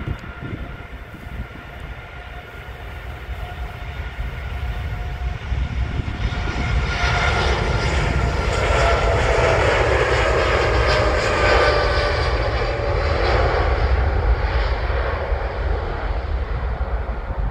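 Boeing 787 Dreamliner jet engines at takeoff thrust on the takeoff roll. A steady whine spools up into a loud roar about six seconds in. The roar peaks as the airliner passes, its pitch dropping, then fades as it moves away down the runway.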